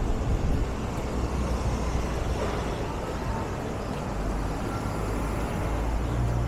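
City street traffic noise: a steady wash of passing vehicles, with a low engine rumble growing stronger over the last couple of seconds.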